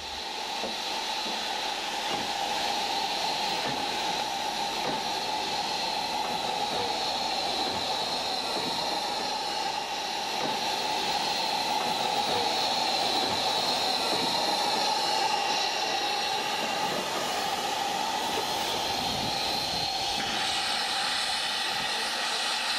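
Mallet tank steam locomotive hissing steadily as it stands and moves off, with a change in the hiss about 20 seconds in.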